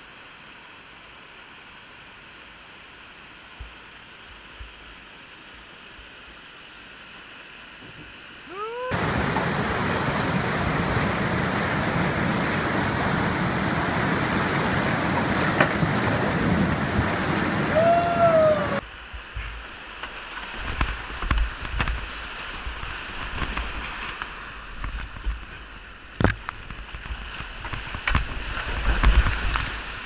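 Rushing whitewater of a river rapid. It is a steady rush at first, then much louder for about ten seconds in the middle, then uneven splashing with low thumps as a kayak runs through the rapid.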